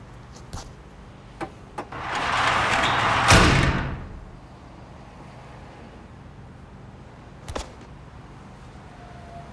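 A few sharp clicks, then a rushing swell of noise lasting about two seconds that ends in a heavy thud, and one more click a few seconds later.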